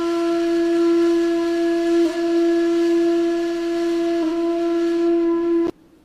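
One long note from a wind instrument, held at a single steady pitch with two brief breaks about two and four seconds in, then cut off suddenly near the end.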